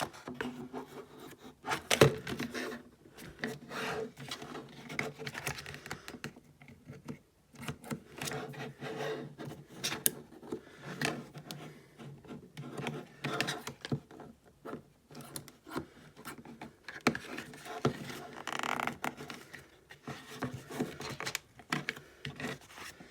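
Scissors cutting and working at stiff plastic packaging, with irregular clicks, knocks and scraping and rubbing as the package is handled.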